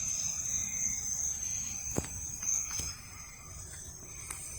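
Steady high-pitched insect chirring, with a faint low rumble underneath and a single sharp click about two seconds in.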